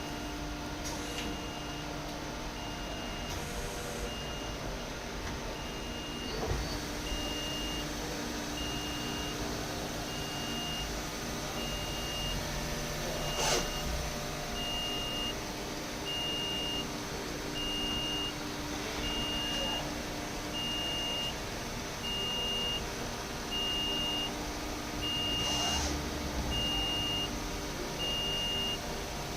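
Mori Seiki NL3000Y/700 multi-tasking CNC lathe powered up, giving a steady machine hum, while a high electronic beep repeats about every second and a half. A few brief knocks, the loudest about 13 seconds in.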